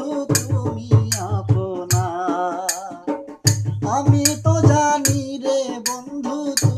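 A male voice sings a Bengali Baul folk melody in long, wavering notes over a hand-beaten barrel drum keeping a quick rhythm of sharp strokes. Both drop out briefly about halfway.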